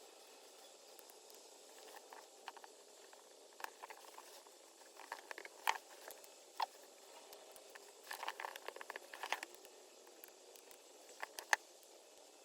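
Scattered small clicks and light rattles of plastic and metal parts being fitted together as a Triumph TR7 wiper switch is reassembled, coming in short clusters with gaps between.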